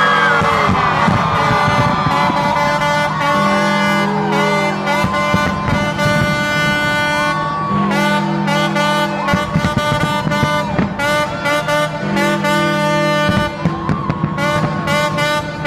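Music with long held notes over a repeating low chord pattern, broken by the short bangs of fireworks bursting overhead, which come more often near the end.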